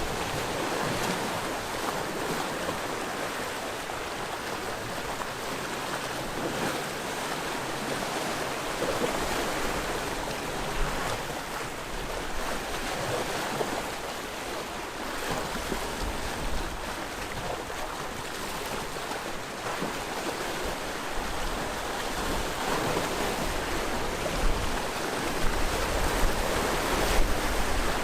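Sea waves washing ashore in a steady, continuous rush. From about two-thirds of the way in, wind buffets the microphone with a gusty low rumble.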